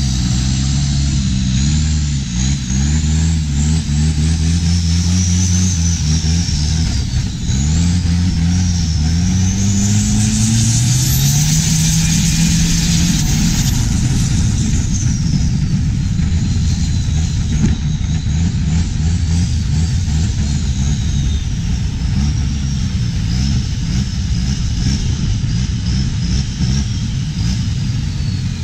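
Diesel engine of a longtail boat running hard, its pitch rising and falling as the throttle is worked, with a high whistle swelling and fading about ten seconds in. Rushing water from the propeller wash sounds beneath it.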